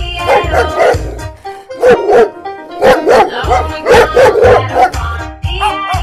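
Dog barks, several in short clusters, over upbeat background music with a steady bass beat.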